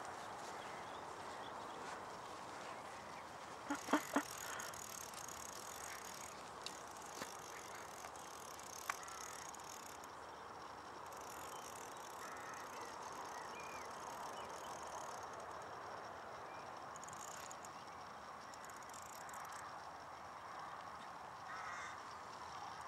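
Fly reel's click drag buzzing in bursts as a hooked carp pulls line off, over a faint steady outdoor hiss; a few sharp clicks about four seconds in.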